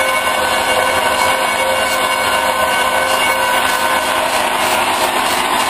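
Large metal lathe running steadily while a high-speed steel boring bar takes a finishing cut on a welded steel plate: a constant machine hum with several steady tones over a hiss of cutting.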